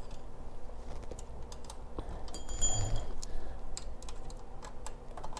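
Irregular small clicks and clinks of hand tools and metal mounting hardware as the fog light mounts are tightened down, with a brief high metallic ring about two and a half seconds in.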